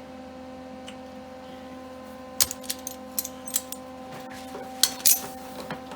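A steady electrical hum, then from about two and a half seconds in a scatter of about ten short, sharp metallic clinks and clicks from metal being handled.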